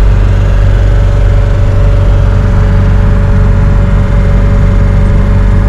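Motorhome engine and road noise heard from inside the cab while driving: a loud, steady low drone with a faint steady hum above it.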